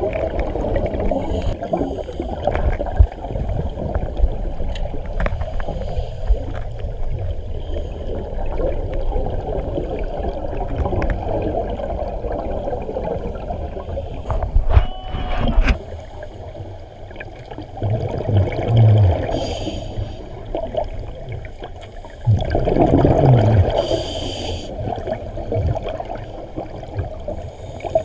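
Scuba diver's regulator exhalations bubbling underwater, heard through the camera housing: a dense low rumbling gurgle that surges loud every few seconds as each breath of bubbles is let out.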